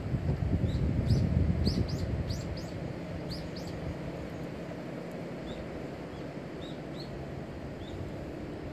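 Small birds chirping: a quick run of short high chirps over the first few seconds, then single chirps about once a second. Low wind rumble on the microphone in the first two seconds or so, easing after that.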